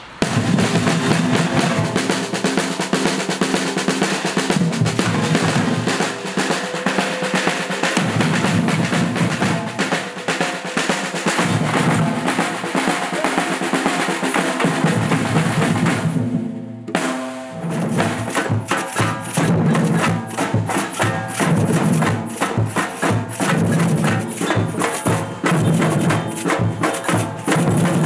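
Batucada (Brazilian samba percussion) ensemble with surdo bass drums playing a rhythm together. About two-thirds of the way through, the drumming breaks off for a moment, then comes back in.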